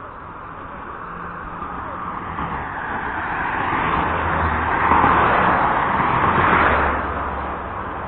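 A vehicle passing close by: its engine and road noise build steadily, are loudest about five to seven seconds in, then fade.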